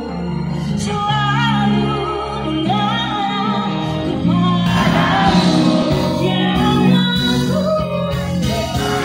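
A woman singing a melody into a microphone over a live band, amplified through the stage sound system.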